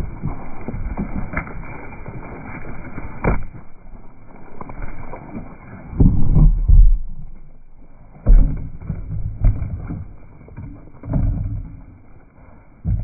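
Close-up rustling and scuffing of Zwartbles sheep rushing through grass right over a phone lying on the ground. Heavy thumps and rubbing come in the second half as sheep bump into the phone and knock it over.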